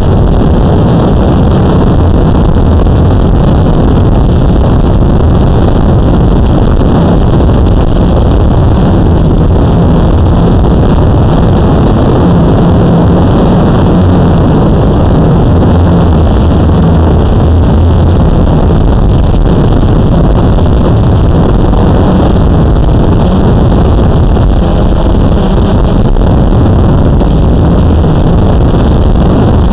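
Blade 350 QX quadcopter's brushless motors and propellers whirring steadily, heard loud and close through the camera mounted on the drone.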